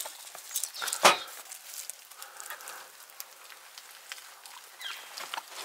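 Small clicks and taps of a salt shaker and a fork on a plate of food, with one sharp knock about a second in.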